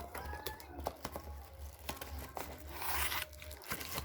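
Packaging being torn and crinkled open: scattered crackles and clicks, with a longer tearing rip about three seconds in.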